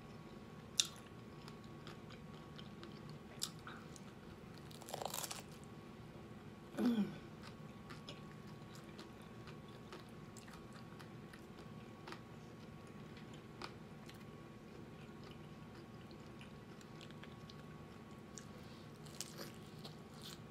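Crisp hard taco shells cracking as they are bitten and chewed: a few sharp crunches spaced out, with a cluster about five seconds in and another near the end, between quieter stretches of chewing. A faint steady hum lies underneath.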